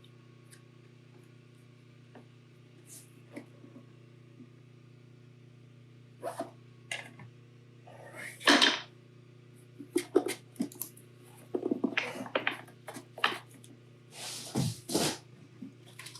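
Scattered clicks, knocks and rustles of small parts, tools and packaging being handled at a workbench, sparse at first and busier in the second half, with one loud rustle about halfway through. A steady low hum lies underneath.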